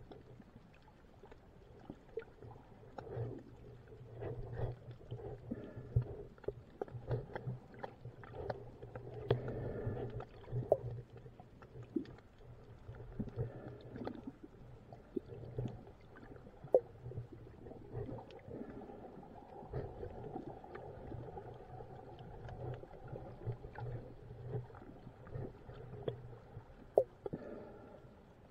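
Underwater sound picked up by an action camera in its waterproof housing: a muffled, steady low rumble of moving water with scattered small clicks and pops, three of them sharp.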